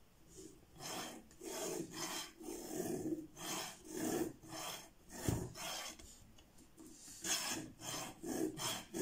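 A sharpening stone on the guide rod of an Edge Pro–style knife sharpener rubbed back and forth along a knife's edge, in a run of short strokes about two a second, with a dull knock about five seconds in.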